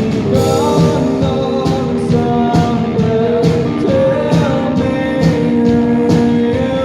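A rock band playing live with a lead vocal, guitar and drums, with a steady beat.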